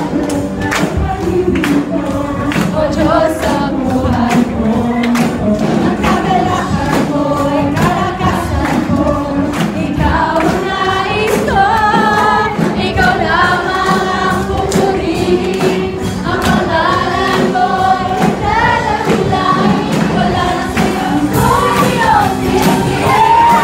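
A crowd of young people singing a contemporary worship song along with a live band, loud and unbroken, over a steady drum beat.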